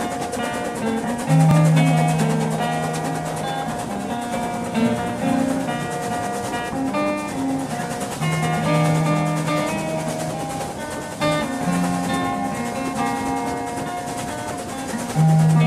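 Background music: an improvised acoustic folk guitar piece, single notes and chords picked in a gentle melody.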